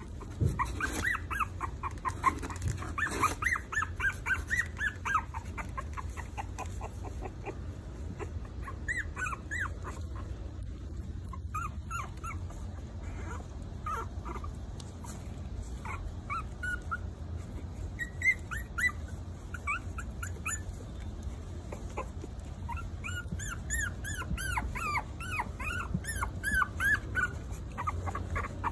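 Four-week-old Maltese puppies whimpering and yipping in short, high squeaks as they play-wrestle and mouth each other. The squeaks come in clusters: a run at the start, a few scattered through the middle, and the densest run near the end.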